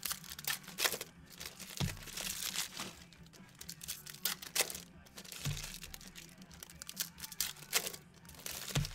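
Trading card pack wrappers from 2017/18 Donruss basketball packs crinkling and tearing as they are ripped open, an irregular crackle, with three dull thumps spread through it.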